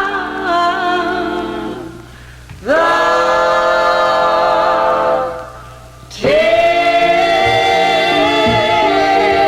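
Vocal group singing long held harmony chords from a 45 rpm record. There are three sustained chords, each fading out before the next one swells in.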